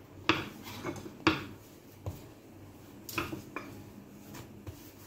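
A plastic rolling pin knocking and clacking against a stone countertop as dough is rolled out. Two loud clacks in the first second and a half, then several lighter, irregular knocks.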